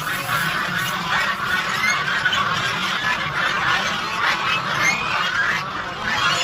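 A flock of domestic geese honking and calling, many overlapping calls at once in a continuous chatter.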